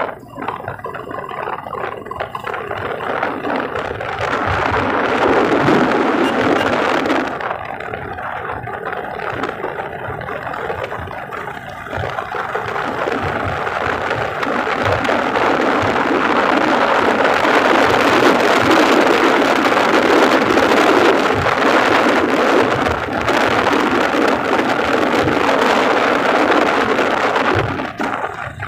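Motorcycle engine running on the move, mixed with heavy wind rushing over the microphone. The rush swells and eases with the ride.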